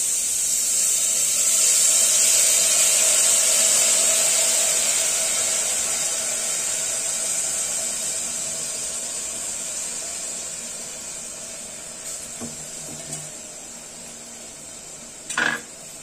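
Soaked rice and moong dal sizzling as they hit hot ghee and fried onion in a pressure cooker. The sizzle is loudest in the first few seconds and then slowly dies down, with a brief knock near the end.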